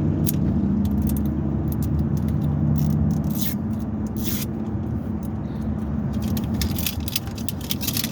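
Paper wrapper crinkling and tearing in short scratchy bursts as a surprise toy ball is unwrapped by hand, over the steady low rumble of a moving car's cabin.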